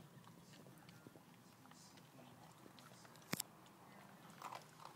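Cavalier King Charles Spaniel puppy eating, heard faintly as soft chewing. A sharp double click comes a little past three seconds in, and a few softer clicks follow near the end.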